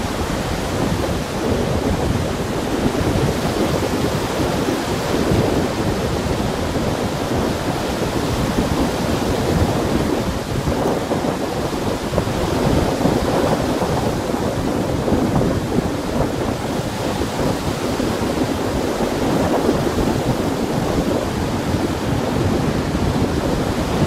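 Small wind-driven waves breaking on a lake shore: a steady rush of surf that swells and eases every few seconds, with a low rumble of wind on the microphone.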